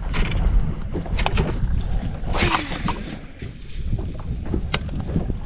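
Wind rumbling on the microphone aboard a fishing boat, with a few scattered sharp knocks and a brief rustling clatter about two and a half seconds in.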